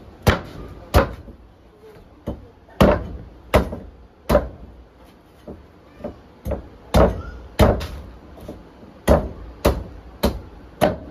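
A machete chopping into a green coconut on a wooden board: a string of about fourteen sharp whacks, irregularly spaced, some in quick pairs.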